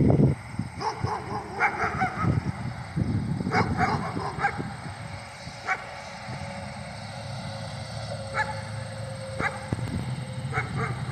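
Short animal calls, sounded in scattered groups of quick yelps, over a steady low hum.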